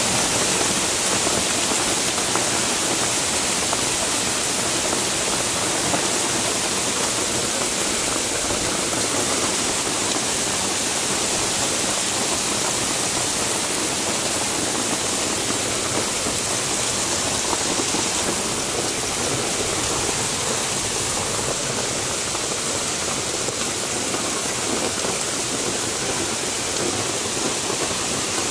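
Heavy rain mixed with hail pouring down onto a paved street, a steady dense hiss without letup.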